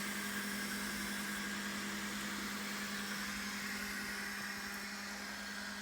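Steady machine hum of running equipment, a constant low tone under an even whirring hiss, easing slightly after about four seconds.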